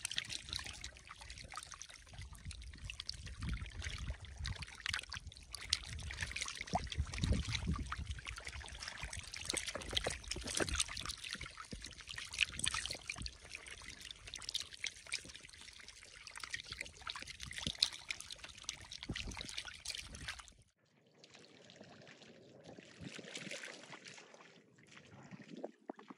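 Many catfish writhing and flapping in shallow muddy water: a dense, crackling mix of small splashes and trickles. About 21 seconds in it cuts off abruptly to a much quieter background.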